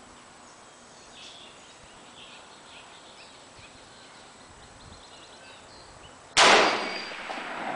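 A single shot from an M1 Garand .30-06 rifle about six seconds in: one sharp, very loud crack with a long echo trailing off under the range's roof. Faint bird chirps are heard before it.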